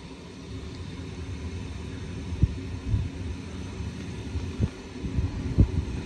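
Passenger train coach heard from inside as it pulls slowly out of a station: a low rumble with irregular heavy thumps and knocks from the running gear.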